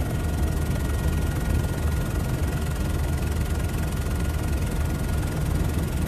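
Steady drone of an aircraft in flight heard from inside the cabin: a low rumble with an even rushing hiss and a faint steady whine.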